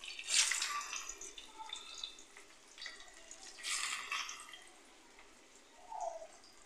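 Besan-coated arvi (taro) leaf pieces shallow-frying in hot mustard oil in a wok: the oil sizzles loudly as each new piece is laid in, once about half a second in and again near four seconds, with a quieter steady sizzle in between.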